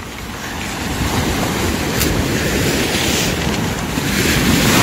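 Surf washing in over a pebble beach, swelling to its loudest near the end as a wave surges in, with wind buffeting the microphone.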